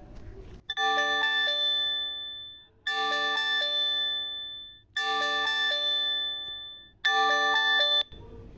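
Android Earthquake Alerts demo alarm playing on a phone: a chime of several bell-like notes that rings out and repeats about every two seconds, four times, the last one cut off short.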